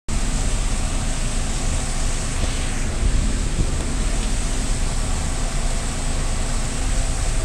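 Fans running in a food truck kitchen: a steady rushing noise with a low hum underneath.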